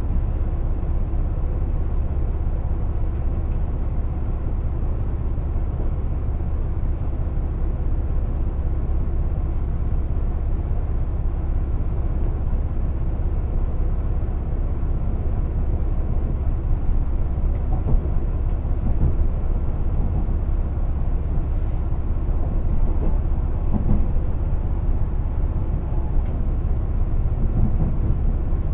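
Steady low rumble of a train in motion, heard from inside the passenger car.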